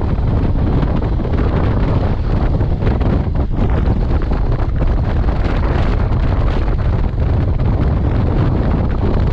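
Steady, loud wind buffeting the microphone of a moving motorcycle, with road noise underneath.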